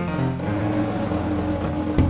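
Instrumental background music, a run of sustained notes changing in pitch.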